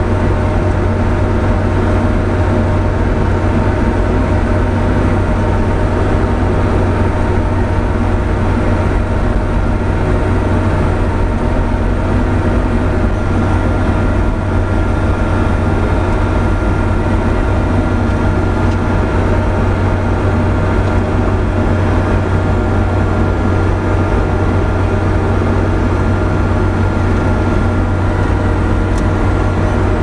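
New Holland C185 compact track loader's diesel engine running steadily, powering a hydraulically driven snowblower that is throwing snow, heard from inside the cab as an even, loud low drone.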